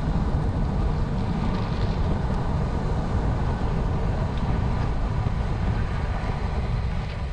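Steady wind noise buffeting the microphone of a handlebar-mounted camera on a moving road bike, mixed with the bike's tyres rolling on rough tarmac.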